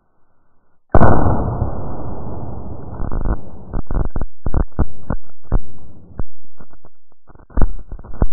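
.45 ACP pistol shot into a watermelon, slowed down for slow motion: a sudden deep boom about a second in, then a long rumbling tail broken into choppy, stuttering bursts.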